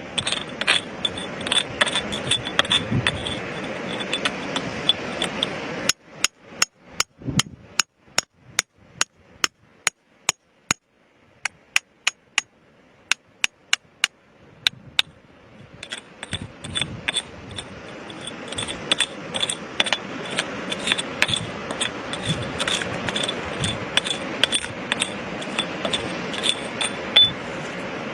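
Hand tools tapping and scraping on rock. Dense scraping and clicking gives way about six seconds in to separate sharp taps, about two a second, which thin out. The dense scraping and clicking comes back about 16 seconds in.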